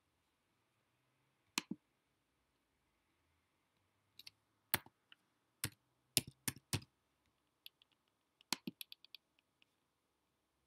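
Keystrokes and clicks on a computer keyboard while a file name is typed: a sharp double click near the start, single keystrokes spaced out between about four and seven seconds in, then a quick run of lighter keys about eight to nine seconds in.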